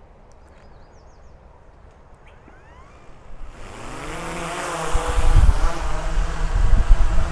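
DJI Mavic 3 Pro drone's motors spinning up about two and a half seconds in with a rising whine, then its propellers running with a loud, steady hum. A heavy low rumble joins about five seconds in.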